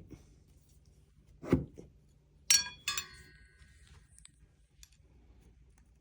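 Bars of a raised planter frame clinking together while being handled: a dull knock, then two sharp clinks about half a second apart that ring briefly.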